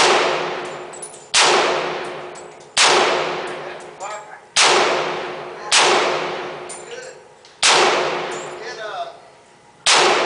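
Seven single shots from an AR-15 rifle, fired one at a time about one to two seconds apart, each followed by a long ringing tail.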